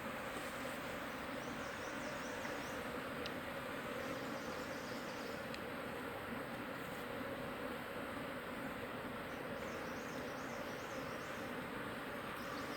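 A swarm of wild honey bees buzzing in a steady, dense hum of many bees at once.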